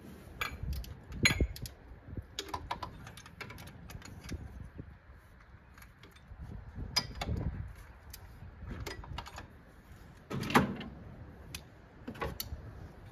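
Hand tools clinking and knocking against metal while a bolt is worked loose, in irregular clicks with a louder clank about a second in and another about ten seconds in.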